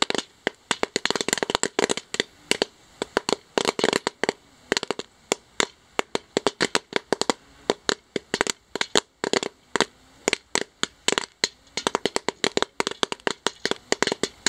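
Pot of freshly popped popcorn in hot pork fat crackling, with many irregular sharp pops, several a second.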